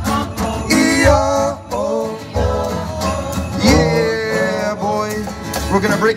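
Live band music: several voices singing a melody over strummed acoustic guitars, with a steady low beat underneath.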